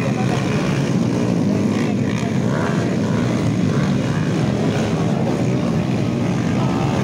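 Several dirt bike engines running at once around a motocross track, a steady drone with revs rising and falling.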